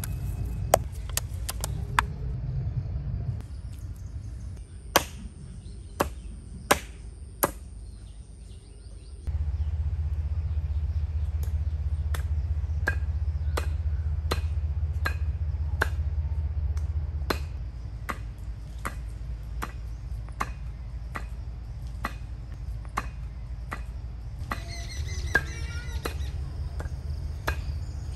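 Chicken meat being pounded with a wooden mallet on a stone slab: sharp strikes, a few loud scattered ones at first, then a steady beat of about three strikes every two seconds over a low steady rumble. Birds chirp near the end.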